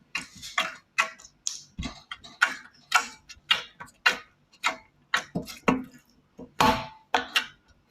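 Slime being squeezed and stretched by hand, making irregular sharp clicks and pops, about two or three a second.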